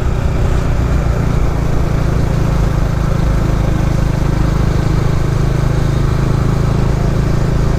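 Motorcycle engine running steadily while riding along at an even pace.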